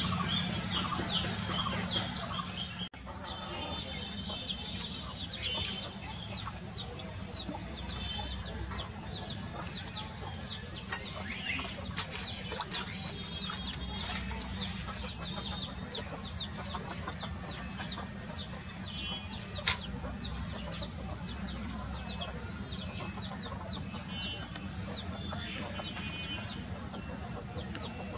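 Birds chirping outdoors: a steady run of short, high repeated chirps, several a second, with domestic fowl clucking and a low steady hum underneath. A sharp click sounds about twenty seconds in.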